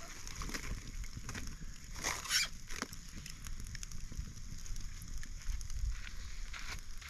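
Campfire crackling in a fire pit, with scattered small pops from smouldering wood shavings, the strongest about two seconds in, over a steady low rumble.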